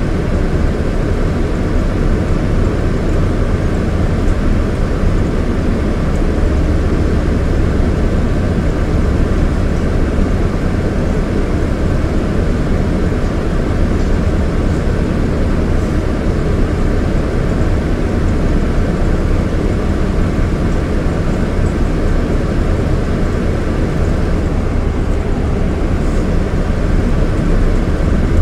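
Scania K230IB coach's Scania DC9 230 hp diesel engine running steadily, a low, even drone.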